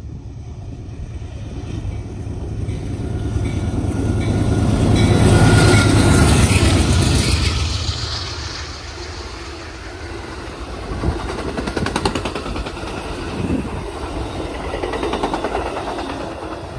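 Amtrak Coast Starlight passenger train passing close by: the locomotives' rumble swells to its loudest about six seconds in, then the double-deck Superliner cars roll past with a lower rumble and a few sharp wheel clicks over the rail joints.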